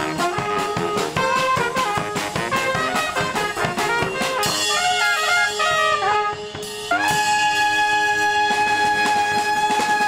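Small street brass band playing: trumpets and saxophones over bass drum and snare, with a steady drumbeat for the first few seconds. The band then holds one long chord for the last three seconds.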